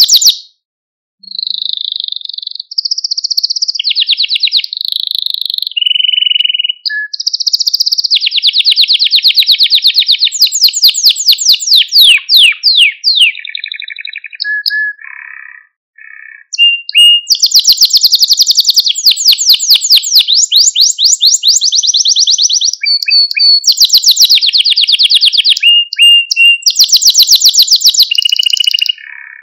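Male Malta canary singing: long runs of rapidly repeated trilled notes at a high pitch, changing from one trill to the next, with short breaks about a second in and around the middle.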